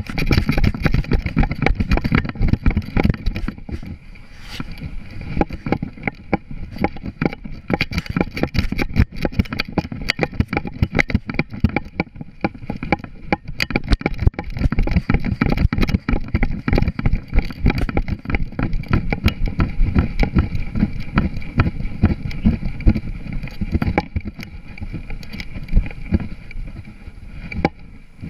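A GoPro strapped to a border collie jolts and knocks in its mount with every stride as the dog runs flat out, a rapid, loud stream of thumps. It starts suddenly and cuts off near the end when she stops.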